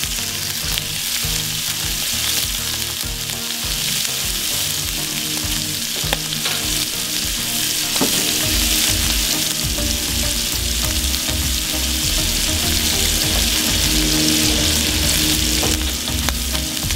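Freshly added shrimp sizzling in olive oil in a cast-iron skillet on a Weber kettle grill, a steady frying hiss.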